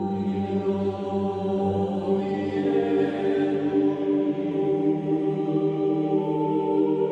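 Background music of slow, sustained chant-like choral tones held over a drone, the pitches shifting gradually.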